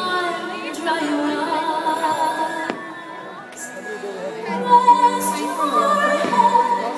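Fireworks show soundtrack of orchestral music with singing, heard over loudspeakers, with a few sudden bangs and crackles from fireworks shells bursting overhead, loudest about two thirds of the way through.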